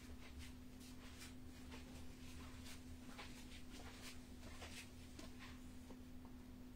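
Near silence: room tone with a steady low hum and faint, scattered clicks.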